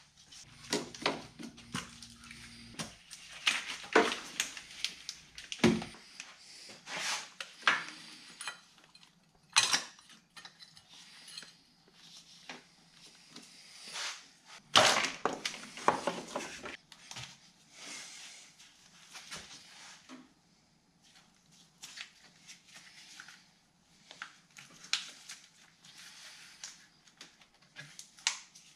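Irregular clicks, clinks and knocks of plastic and metal parts being pulled off and set down as the top of a BMW N20 four-cylinder engine is taken apart by hand.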